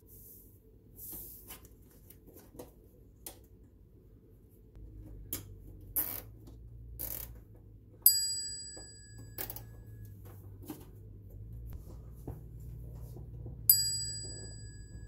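Scattered clicks and small rustles of a nylon zip tie being pulled tight around a dryer's wiring harness, and its tail snipped with scissors. Twice, about eight seconds in and again near the end, a bright ringing chime sounds, louder than the handwork.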